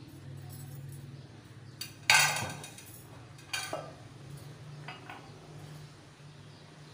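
Metal kitchen utensils clinking against a metal pot: one sharp ringing clink about two seconds in, the loudest, then a lighter clink a second and a half later and faint taps near the end, over a low steady hum.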